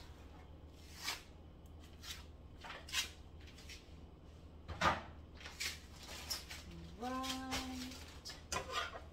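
Scattered knocks and clatter of kitchen items being handled at a counter and stovetop, roughly one every second, over a steady low hum. A short held vocal sound comes about seven seconds in.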